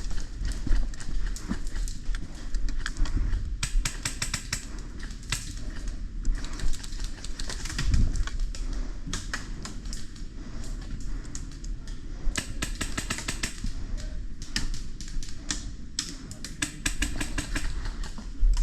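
Airsoft rifles firing in rapid bursts of fast, evenly spaced clicks, several bursts of one to two seconds each, over a low rumble of wind on the microphone.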